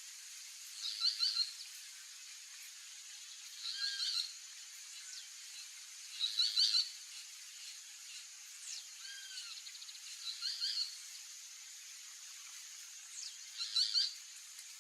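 Boat-billed flycatcher calling: a short, harsh phrase repeated five times, roughly every three seconds, with fainter calls between.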